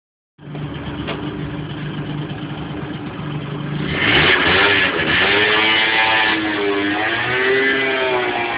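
Yamaha Aerox scooter engine running at steady revs, then revved harder about four seconds in, joined by a wavering squeal that rises and falls as the rear tyre spins on the tarmac in a burnout.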